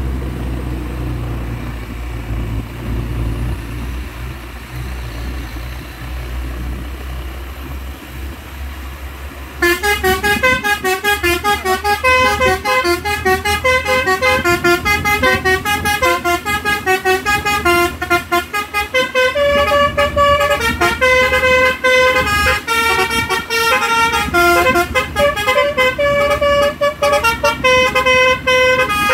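A truck engine running with a steady low rumble. About ten seconds in, a cement mixer truck's multi-tone telolet horn breaks in loudly and plays a fast tune of short notes that keeps going.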